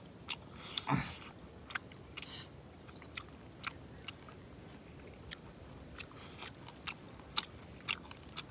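Close-up eating sounds of people chewing and crunching on bamboo-shoot pork and fresh herbs, with sharp wet mouth clicks and smacks about twice a second and one louder, falling sound about a second in.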